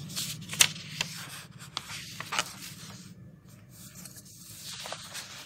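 Paper rustling and crinkling as the pages of a printed question booklet are handled and turned, with several sharp crackles, the sharpest about half a second in.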